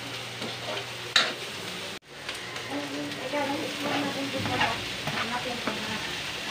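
Garlic and onion sizzling in oil in a metal wok while a spatula stirs and scrapes against the pan, with a sharp clack about a second in. After a sudden break, shredded chicken breast is scraped off a plate into the hot wok, with more scraping strokes over the frying.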